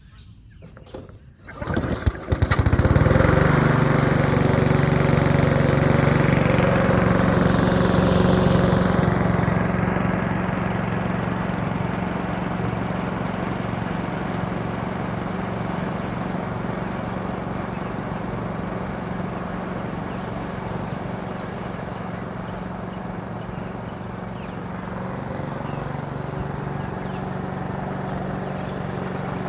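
Rotary lawn mower's engine pull-started, catching about two seconds in and then running steadily, easing off a little after about ten seconds.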